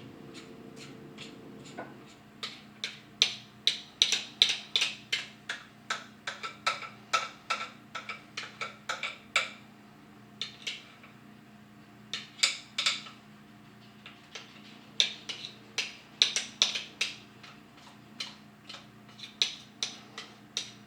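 A metal utensil clicking against a mixing bowl in quick runs of taps, several a second, with short pauses between runs, over a faint steady hum.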